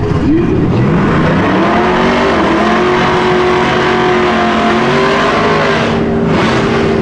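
Drag-race vehicle engine revving up about a second in, then held at high, nearly steady revs for the burnout, with tyre-spin noise under it.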